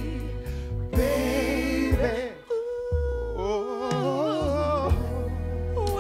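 Soul ballad sung as a duet: wordless, melismatic vocal lines with wide vibrato and a long held note near the middle, over a band with low bass notes underneath.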